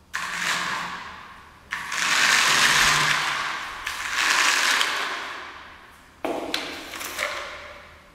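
Toy car's small electric gear motor whirring in several bursts, each starting suddenly and fading, with a few sharp clicks: power switched on and off to the motor by a relay as the IR sensor detects the stick in front of it.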